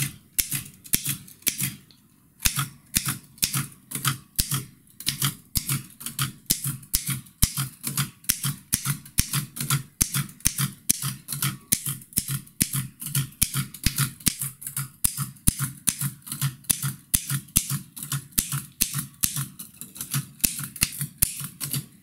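Antique mechanical typewriter being touch-typed in a steady, even rhythm of about three to four sharp key strikes a second, typing the drill 'dcd' plus space over and over. There is a brief pause about two seconds in.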